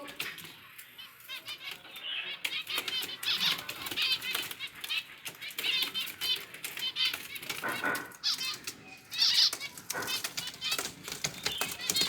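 Small pet finches chirping rapidly, with wings fluttering and light clicks from the birds moving about their cages.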